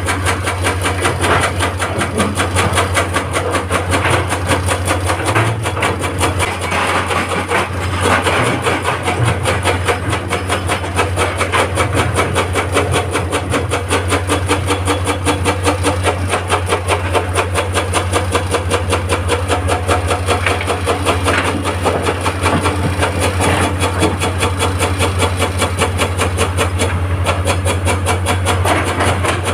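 Excavator diesel engine running steadily, a strong low drone with fast, even pulsing throughout.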